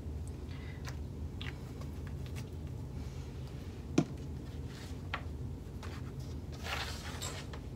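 Small handling sounds on a craft table: a few light clicks and taps and some rustling of fabric, with one sharper tap about four seconds in as a small plastic bottle of Fray Check is set down. A steady low hum lies underneath.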